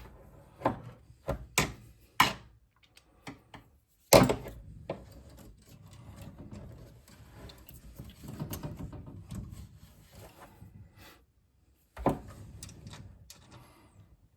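Sharp clacks and knocks of parts and a hand screwdriver being handled, the loudest about four seconds in and another near the end, with several seconds of scraping and rubbing in between as a screw is worked by hand into the mounting of the Rudy head mechanism.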